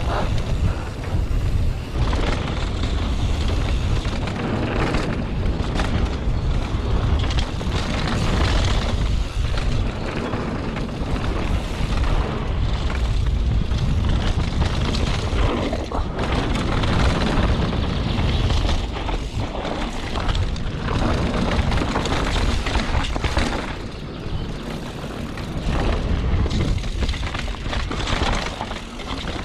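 Mountain bike descending a rough dirt trail at speed: wind buffeting the camera microphone over a steady rumble, with the knocks and rattle of tyres and suspension on the uneven ground.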